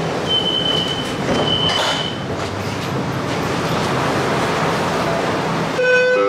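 Dubai tram cabin noise, heard from inside the car, with a high electronic beep sounding twice in the first two seconds. Near the end the cabin noise gives way to a few held tones.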